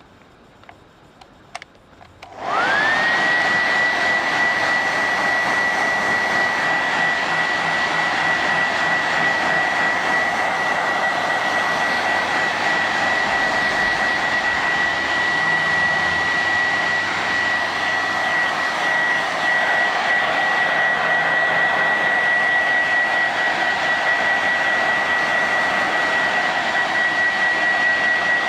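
A few faint clicks, then a hair dryer switches on about two seconds in: its motor whine rises quickly and settles at a steady high pitch over a loud, even rush of air that runs on unchanged.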